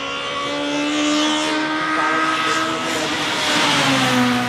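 Nissan Primera BTCC Super Touring car's 2.0-litre SR20DE four-cylinder, breathing through individual throttle bodies, running hard at high revs as the car approaches. It passes close by about four seconds in, at its loudest, and the engine note drops in pitch as it goes past.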